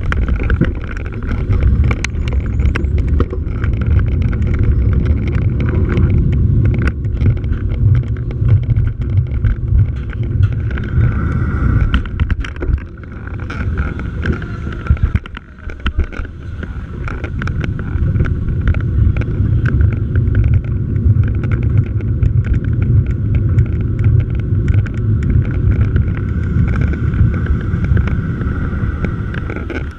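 Motorcycle engine running at low riding speed, with wind rumble on the microphone. The sound eases briefly about halfway through.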